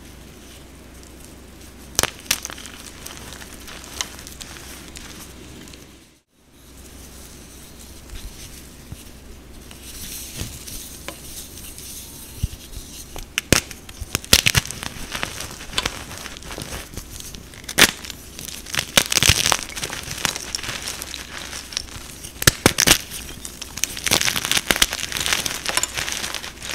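Blocks of gym chalk being crushed and crumbled by hand, with sharp crunching cracks that come sparsely at first and grow denser and louder in the second half.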